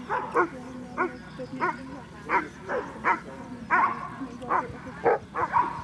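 A dog barking and yelping repeatedly, about two short barks a second, over a steady low hum.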